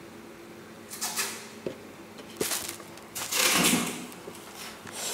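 Cloth rustling and rubbing against the phone's microphone in several short bursts, the loudest a little over three seconds in, over a faint steady hum.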